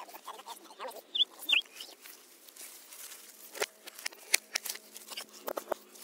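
Leaves rustling and scattered clicks from hands working through garden plants, with two short, high bird chirps about a second and a half in.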